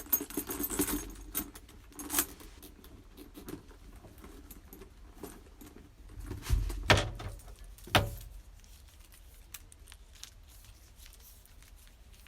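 Metal hardware on a handbag jingling and clinking as the bag is handled, with a few heavier knocks about six to eight seconds in.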